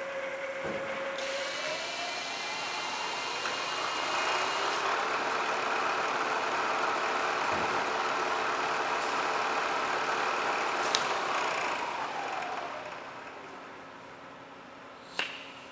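Bridgeport V2XT CNC milling machine's spindle speeding up with a rising whine, running steadily, then slowing down with a falling whine and the level dropping. A click comes near the end.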